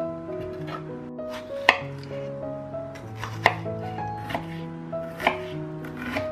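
Background music, a stepping melody over a bass line, with sharp knock-like hits about every second and a half to two seconds.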